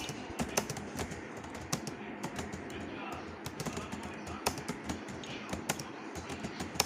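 Fast typing on a computer keyboard: quick, irregular key clicks, several a second, with no break.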